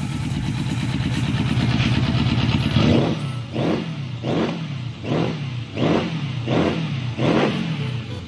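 Yamaha FZX750 inline-four motorcycle engine running, its revs climbing over the first three seconds. It is then blipped about seven times in quick succession, each rev rising and dropping back, roughly every three-quarters of a second.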